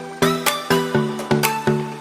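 Background electronic music: a steady pulse of short plucked synth notes, about four a second, each note decaying quickly.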